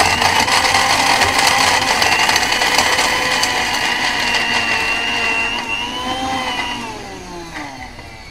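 Sujata mixer grinder running at full speed with a steady whine, grinding a small batch of soaked, squeezed soya chunks in its steel jar. Near the end it spins down, its pitch falling as it stops.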